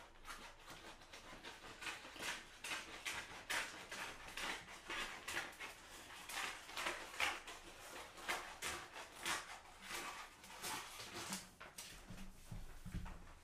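Plastic transfer film crackling and rustling in quick, irregular bursts, a few a second, as the excess is cut and pulled away along the edge of the print. A low bump sounds near the end.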